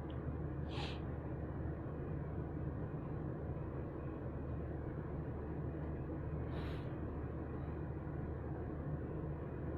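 Air-conditioner outdoor-unit fan motor, single-phase and capacitor-run, running on a bench test with a steady low hum. Two brief hisses are heard, about a second in and again near seven seconds.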